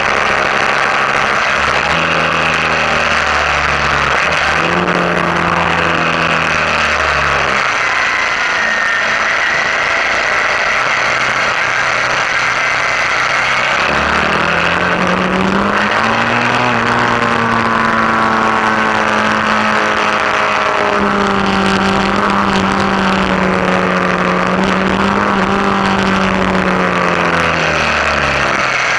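Suzuki V-Strom 650's V-twin engine running on the move, with steady wind rush over the bike-mounted microphone. The engine pitch rises and falls with throttle and gear changes, climbing about halfway through and holding fairly steady before dropping near the end.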